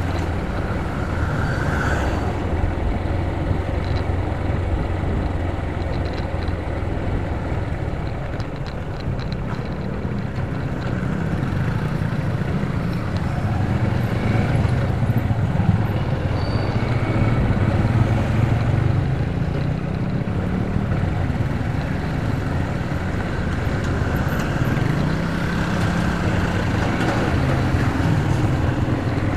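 Motorcycle engine running while riding at road speed, a steady low rumble whose pitch rises and falls a little with the throttle, mixed with road and wind noise.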